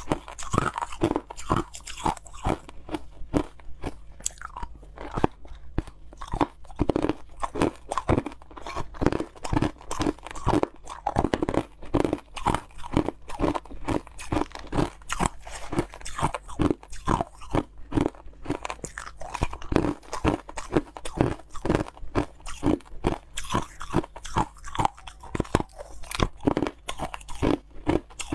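Crushed ice being bitten and chewed close to a clip-on microphone: a rapid, continuous run of crunches, bite after bite.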